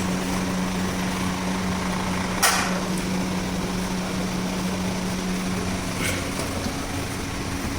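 Steady machine hum over a noisy background, with one sharp click about two and a half seconds in and a fainter click about six seconds in.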